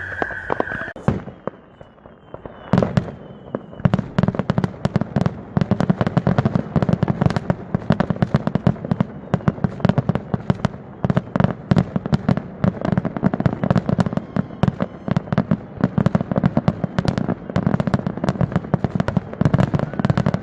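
A long string of firecrackers going off, rapid sharp cracks many times a second with no pause, starting about three seconds in.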